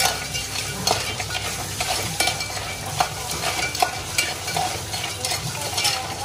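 Spice masala frying in oil in a pan and being stirred with a spoon: a steady sizzle with irregular sharp knocks and scrapes of the spoon against the pan.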